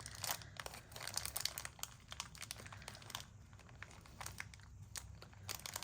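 Light rustling and scattered small clicks from handling small metal jump rings and beading supplies at a work table.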